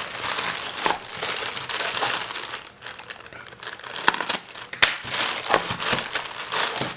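Packaging crinkling and rustling as a soldering station is unpacked from its box, with a few sharp clicks around the middle.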